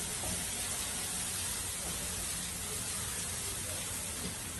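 Chopped onions with green chilli, ginger and curry leaves frying in oil in a kadai: a steady, even hiss as they are sautéed until browned.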